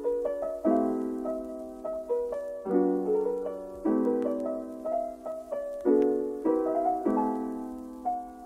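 Background music: soft piano playing slow chords, changing every second or two, with lighter single notes in between.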